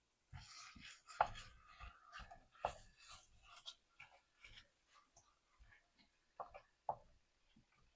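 A cooking utensil scraping and tapping against a skillet, stirring ground beef and onions, in a run of irregular short scrapes and clicks.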